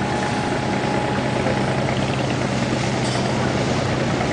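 A boat's engine running steadily, heard from on board as a low drone under a constant hiss.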